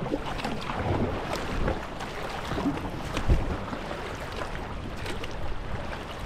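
Kayak paddle strokes dipping and splashing in flat river water, with water dripping and lapping against the plastic hull, and some wind on the microphone. One louder thump about three seconds in.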